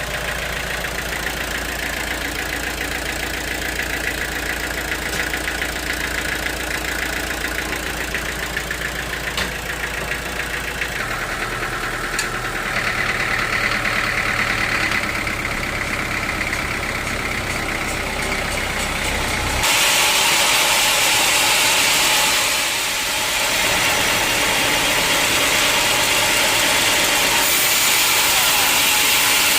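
Sawmill machinery running steadily with a low engine drone. About two-thirds of the way in it turns abruptly louder and hissier as the saw blade starts cutting through a log.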